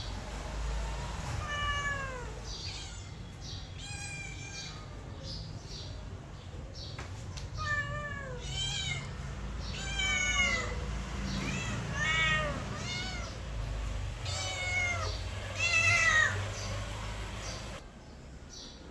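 A mother cat and kitten meowing: a run of short, high-pitched mews, about one a second, many falling in pitch and some overlapping. The calls stop about a second before the end.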